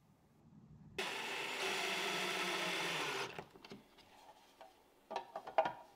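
A small handheld power tool on wood runs steadily for about two seconds, starting and stopping abruptly, followed by a few light knocks and clicks of handling near the end.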